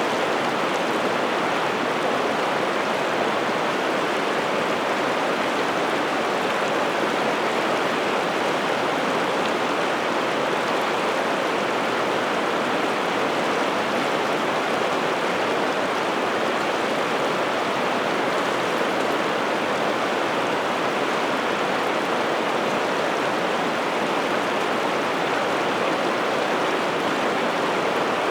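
River water rushing steadily, an even, unchanging noise.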